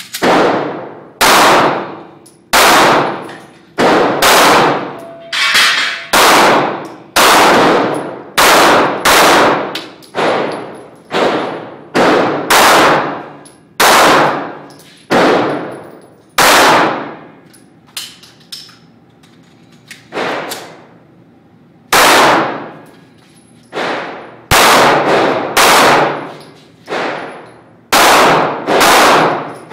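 Semi-automatic pistol fired in a quick string of about two dozen shots, mostly about a second apart, each echoing in a large indoor range. There is a pause of a few seconds after the middle, broken by one quieter shot, before the firing picks up again.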